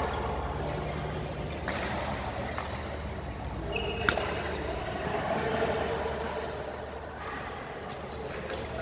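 Badminton rally: sharp cracks of rackets striking the shuttlecock, the loudest about four seconds in, and short high squeaks of court shoes on the hall floor.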